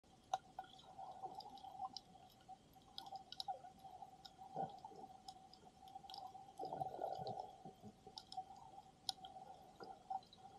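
Faint, muffled underwater sound through a submerged camera's microphone: scattered sharp clicks and crackles over a steady faint hum, with a few louder rustles about four and a half and seven seconds in.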